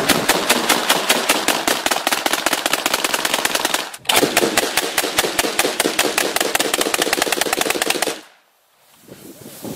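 AA-12 fully automatic 12-gauge shotguns firing in rapid, evenly spaced shots: one long burst of about four seconds, a split-second break, then another of about four seconds that cuts off suddenly. The second burst comes from two AA-12s fired at once.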